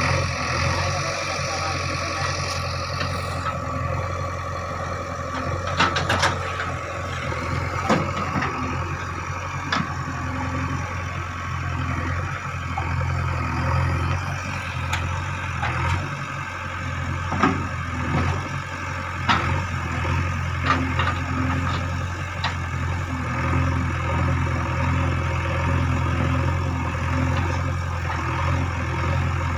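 JCB backhoe loader's diesel engine running steadily, with a few sharp knocks and clanks scattered through.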